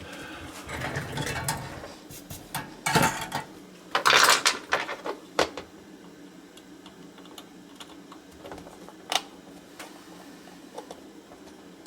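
Small tools and metal parts handled on a workbench while a small CB amplifier is taken apart: scattered clicks and taps, with a louder scraping rustle about four seconds in, over a low steady hum.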